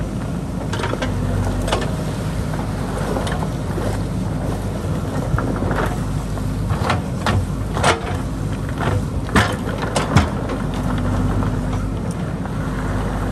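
JCB backhoe loader's diesel engine running steadily under load while the rear bucket digs through rocks and gravel in a shallow riverbed. Repeated sharp clanks and knocks of stone against the steel bucket come through, the loudest several in the second half.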